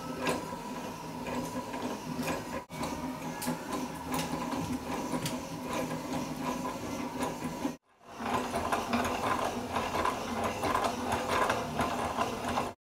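Hand-cranked wooden automaton: the crank turns a wooden camshaft, and the cams and followers click and rattle as they lift and drop the figures. The sound cuts out briefly twice and stops suddenly near the end.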